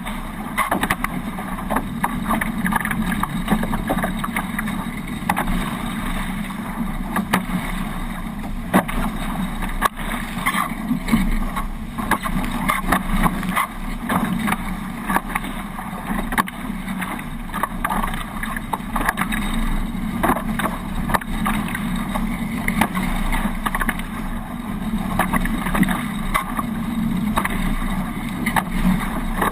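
Hobie 18 catamaran under sail: a steady rush of water and wind over the microphone, with many small sharp knocks and clicks.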